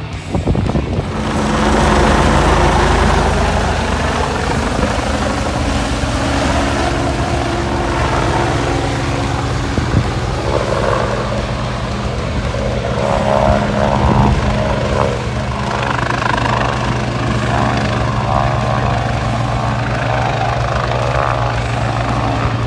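Helicopter running nearby, a steady drone that grows louder about a second in and holds.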